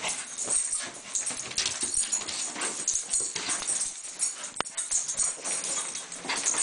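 Two dogs play-fighting on a bed: irregular scuffling on the bedding mixed with dog noises, with a few sharp clicks about four and a half seconds in.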